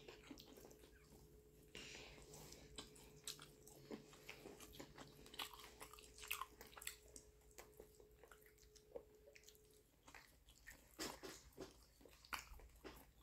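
Faint sounds of a person eating with their hands: soft, wet chewing and mouth clicks scattered irregularly, with a faint steady hum beneath that stops about ten seconds in.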